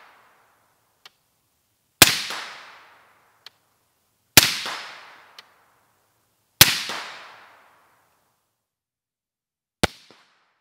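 Suppressed AR-15-style rifle firing: three shots about two seconds apart, each a sharp crack with an echo dying away over about a second and a faint tick about a second later, then a fourth, shorter shot near the end.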